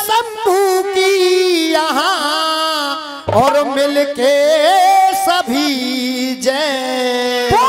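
A solo voice singing a Rasiya folk song with ornamented, wavering phrases. After a short break about three seconds in, one long note is held almost to the end.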